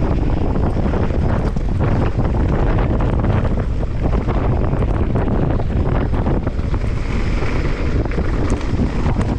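Wind rushing over the action camera's microphone as a Santa Cruz Megatower mountain bike descends fast, with the tyres crunching over loose gravel and constant small knocks and rattles from the bike.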